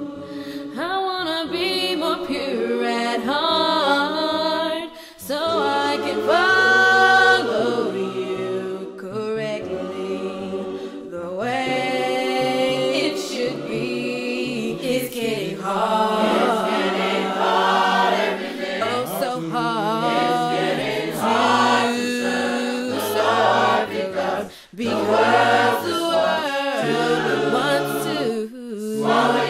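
Church choir singing a gospel song a cappella, several voices in parts together. The singing drops out briefly between phrases about five seconds in and again a few seconds before the end.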